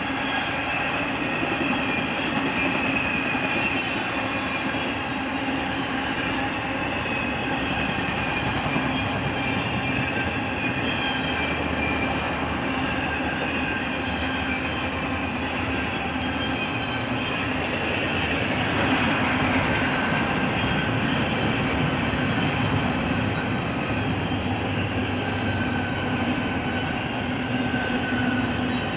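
Intermodal freight train cars (trailer flatcars, then double-stack container well cars) rolling past on steel wheels: a continuous clatter of wheels on rail with steady high ringing tones from the wheels. The sound swells briefly about two-thirds of the way through.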